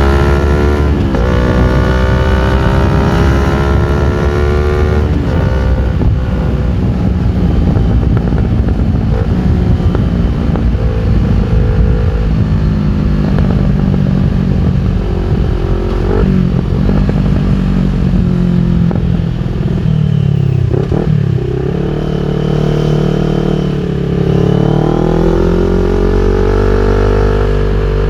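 CFMOTO NK400 motorcycle's parallel-twin engine running through an Akrapovic full exhaust system while ridden. The exhaust note rises and falls repeatedly with throttle and gear changes, dipping low about two-thirds of the way in and climbing again near the end.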